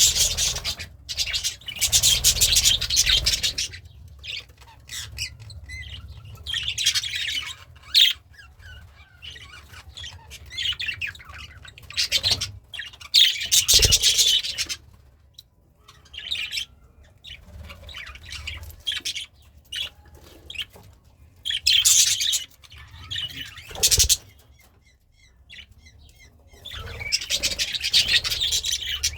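Pet budgerigar chirping and warbling in bursts of rapid, high chatter, with short single chirps between the bursts. Two sharp knocks are heard, about halfway through and again near the end.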